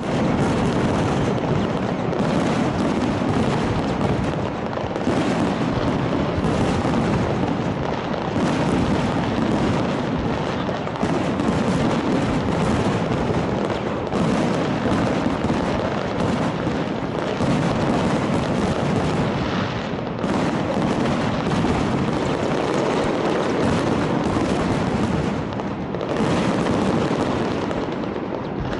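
Fireworks display: a dense, unbroken barrage of overlapping bangs and booms, swelling and easing every second or two.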